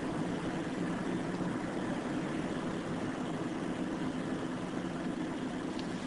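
Steady machine hum with a hiss over it, unchanging throughout.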